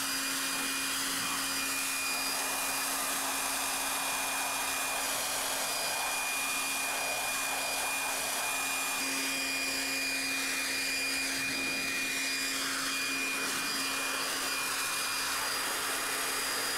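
Handheld leaf blower running steadily with a constant whine, blowing sawdust off a driveway.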